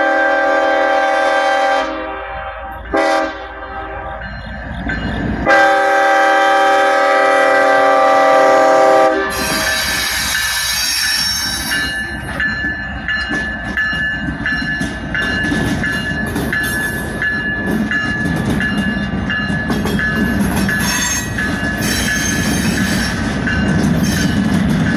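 A freight train's locomotive air horn sounds: a long blast ends about two seconds in, a short blast follows, then a loud long blast lasts about four seconds. After that the train rolls past at walking speed, its wheels giving a steady high squeal with faint clicks on the rails.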